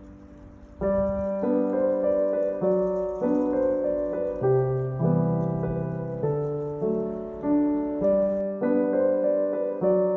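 Background piano music: quiet, slow chords and melody notes coming in about a second in, each note ringing and fading.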